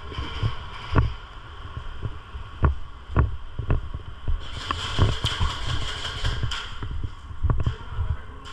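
Irregular low thumps, about one every half second to a second, with a stretch of hissing rustle in the middle.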